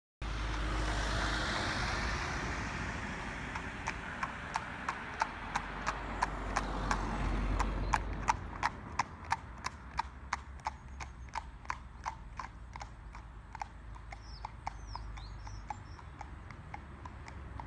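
Horse's hooves clip-clopping on a tarmac road at a steady trot, about three beats a second, growing fainter as the horse moves away. A rushing noise fills the first few seconds, and a few brief high chirps come near the end.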